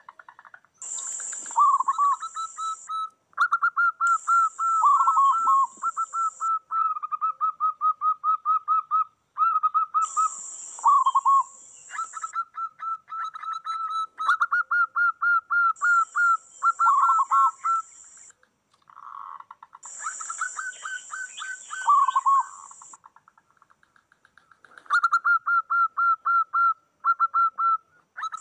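Several zebra doves (perkutut) cooing and answering one another: overlapping runs of quick, short, repeated coos, with lower falling notes in between. Bursts of a high, shrill buzz come in every few seconds.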